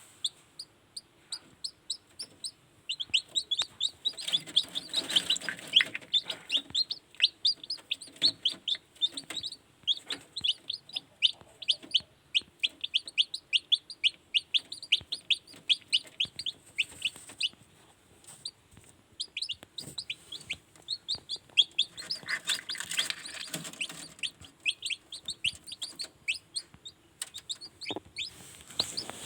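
Newly hatched kampung chicken chicks peeping: quick runs of short, high chirps that slide down in pitch, several a second, with a short pause in the middle.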